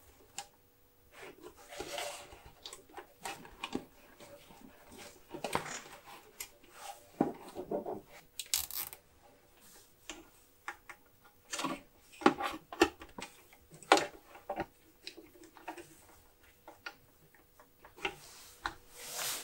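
Hands working over the plastic underside of an electronic scale, tidying a power cable and pressing a small USB boost-converter module into place: irregular clicks, taps and short rustles of cable and plastic being handled.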